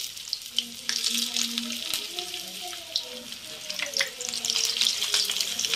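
Hot oil in a kadhai sizzling and crackling as veg manchurian balls are slid in for a second fry. The sizzle swells about a second in and again near the end as more balls go in, with small clicks of the balls and the ladle against the pan.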